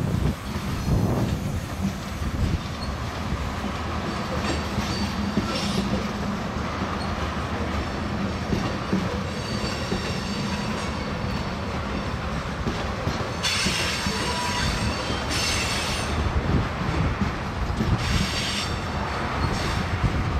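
Norfolk Southern freight train rolling through the yard: a steady rumble of wheels on rail with some clickety-clack, and high-pitched wheel squeal several times, loudest about two-thirds of the way through.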